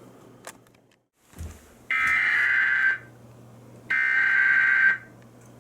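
Two roughly one-second bursts of an Emergency Alert System SAME header, the buzzing digital data tones that open an alert, about two seconds in and again about four seconds in, heard through TV audio. A faint steady low hum runs underneath.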